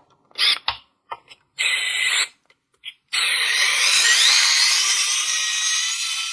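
Small electric screwdriver backing out a screw: a few light clicks, a short burst of the motor, then the motor running steadily for about three seconds with a faint rising whine.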